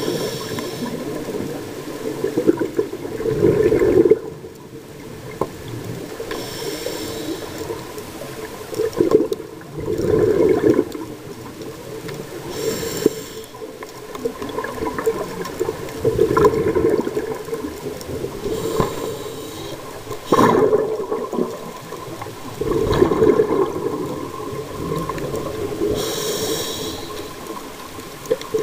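Scuba diver breathing through a regulator underwater: a short hissing inhale, then a louder rush of exhaled bubbles, repeating about every six seconds.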